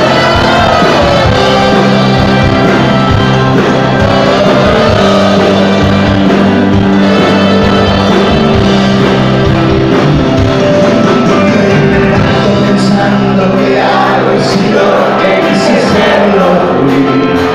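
A rock band playing live with a lead singer. There are sustained chords and a vocal line sliding between notes, and the music stays loud throughout.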